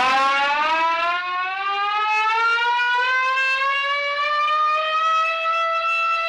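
A siren wail: one long tone that climbs slowly in pitch and levels off near the end.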